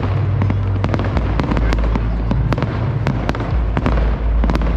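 Fireworks going off in rapid succession: many sharp cracks and pops, several a second, over a continuous deep rumbling of booms.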